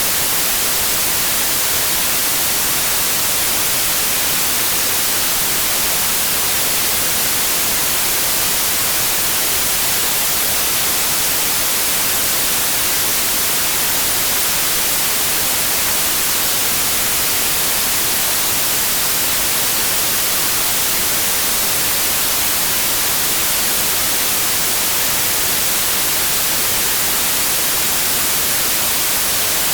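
Steady white noise, an even hiss weighted toward the highs, unchanging throughout.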